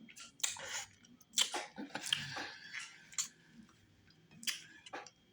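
Close wet eating sounds of fufu with slimy okra stew: chewing and mouth smacks in irregular bursts.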